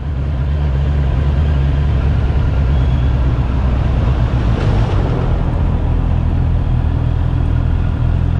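Honda CB650R's inline-four engine running at low, steady revs under way, with tyre noise from wet cobblestones.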